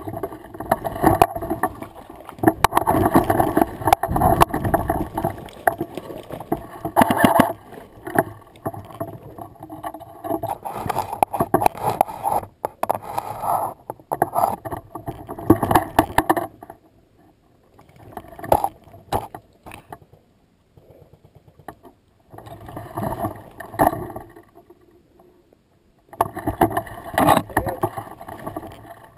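Rustling and handling noise from a rifle-mounted camera as an airsoft sniper rifle is carried and shifted through dry leaf litter and brush, with scattered clicks and knocks. It stops and starts, with short quiet pauses in the second half.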